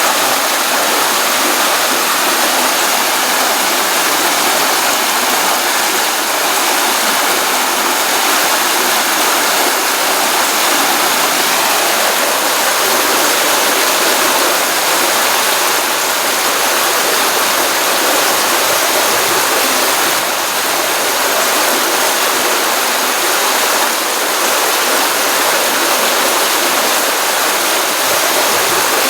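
Water from a pond running in a small stream after rain: a steady, even rushing and splashing, with more hiss than low rumble.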